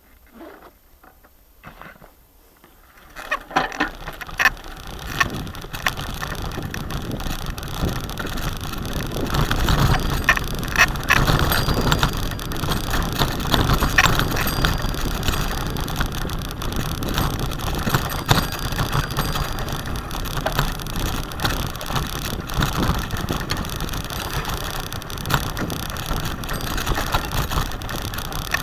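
Bicycle ridden over a rough, rutted dirt track and through tall dry grass: a dense, uneven rattle with many sharp knocks as it bumps along, with grass brushing against it. It starts about three seconds in after a quiet stretch.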